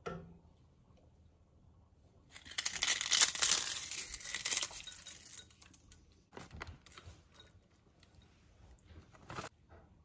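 Tortilla chips crumbled by hand over a bowl of soup: a dense crackling crunch starting a couple of seconds in and lasting about four seconds, then softer scattered crackles as the last pieces are broken and dropped.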